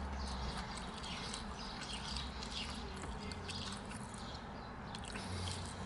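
Close-up chewing and wet mouth sounds of a person eating a fried chicken sandwich and waffle fries: irregular smacks and crackles, over a low steady hum.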